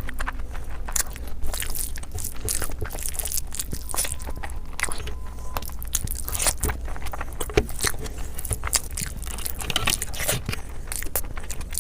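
A person chewing and biting food close to the microphone: a steady, irregular run of short mouth clicks and smacks.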